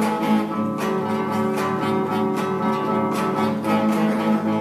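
Classical guitar strumming chords in a steady rhythm, about two to three strums a second, with no singing.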